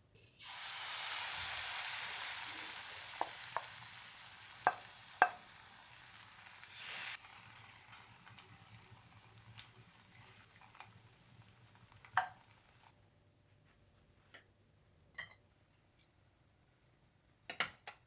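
Food sizzling in a hot frying pan. A loud sizzle starts suddenly, fades slowly and cuts off about seven seconds in; a quieter sizzle follows, with a few light clicks and taps of a utensil against the pan.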